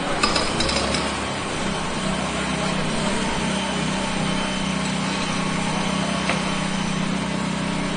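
Pneumatic jackhammer running continuously with a steady drone, a few sharp clicks about half a second in.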